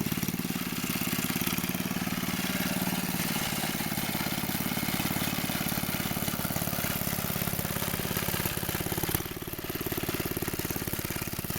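1952 Savage Arms lawn mower's small engine running steadily, its firing pulses even. About nine seconds in there is a short sharp knock, the level dips briefly and the engine note changes slightly.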